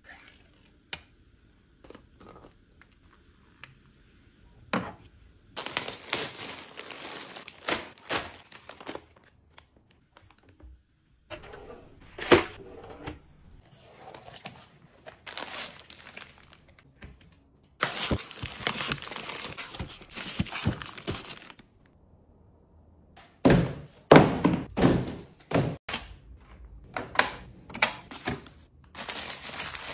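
Unboxing and tidying handling sounds: a box cutter slitting the packing tape on cardboard cartons, packaging crinkling and tearing, then skincare jars and bottles knocked and set down in a plastic organizer in a run of sharp thunks near the end.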